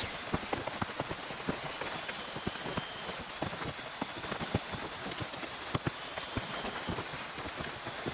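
Rain falling on a tent, with many separate drops striking the fabric over a steady patter.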